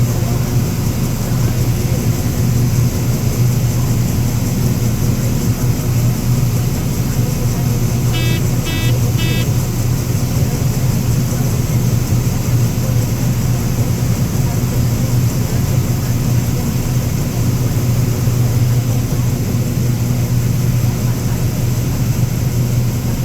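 Harvest machinery engine running with a steady low drone. Three short electronic beeps sound about eight seconds in.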